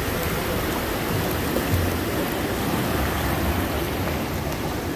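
Steady rushing noise of wind and sea water around a kayak, with a low, unsteady rumble of wind on the microphone.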